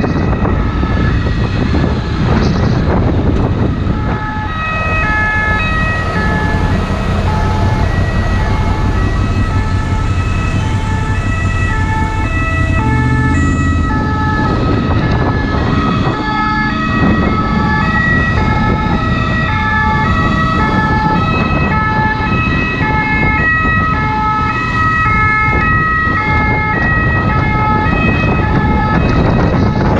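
French SAMU ambulance's two-tone siren, stepping back and forth between two pitches, with road and wind noise underneath.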